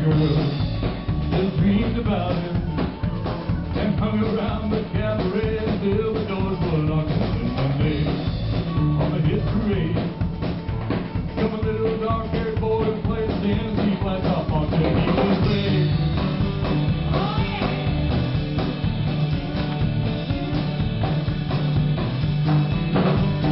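Live band playing a song on drum kit, electric bass and guitars.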